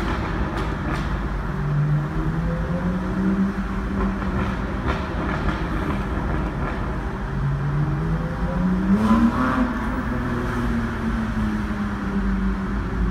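BMW N52B30 3.0-litre straight-six of a 330i with a BMW Performance exhaust and straight-piped midpipe delete, pulling in a low gear at around 3000 rpm, heard from inside the cabin. The revs rise sharply about nine seconds in, then ease back slowly.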